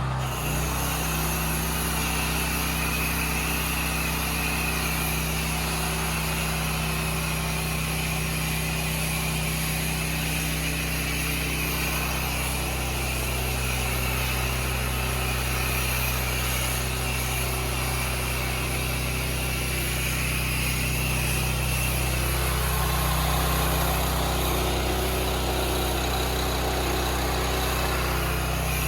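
Petrol engine of a pressure-washing machine running steadily at a constant speed, with a steady hiss above it; its tone shifts slightly about halfway through.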